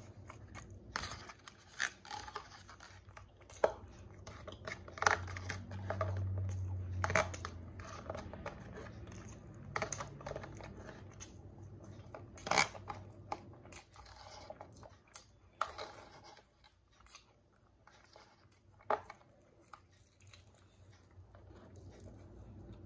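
A white plastic fork clicking and scraping in a black plastic takeout tray as food is forked up and eaten, with chewing between the many short sharp clicks. A low hum lasts a few seconds about five seconds in.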